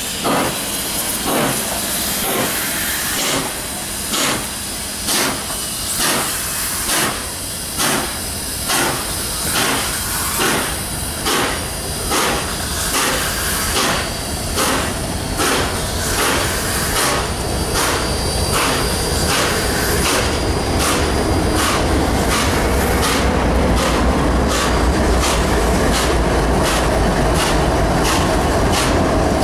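Nickel Plate Road 765, a 2-8-4 Berkshire steam locomotive, pulling away at close range. Its exhaust chuffs quicken from about one a second to about two a second as it gathers speed, with steam hiss. From about halfway, the low steady rumble of the trailing NS 8100 diesel locomotive builds up and covers the beat.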